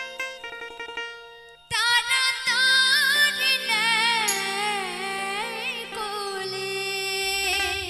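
Live Bengali devotional song: after the accompaniment's notes die away and a brief pause, a female voice comes in about two seconds in with long, wavering, ornamented held notes over keyboard accompaniment. Low bass notes step upward near the end.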